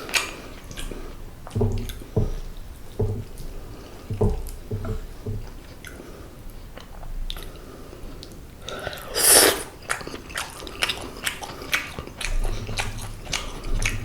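Close-miked chewing and biting of boneless seasoned braised pollock, with many small wet mouth clicks and soft low thuds at an irregular pace. A short, louder burst of hissing noise comes about nine seconds in.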